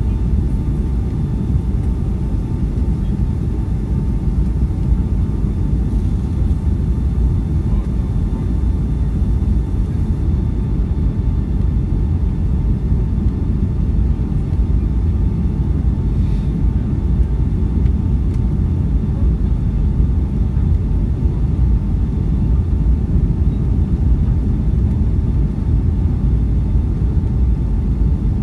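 Airbus A350 cabin noise on final approach: a steady, low rumble of engines and airflow, heard from inside the cabin, with a faint steady hum above it.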